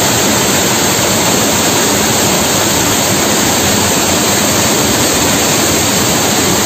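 Waterfall swollen with monsoon rain, its water coming down with great force in a loud, steady rush.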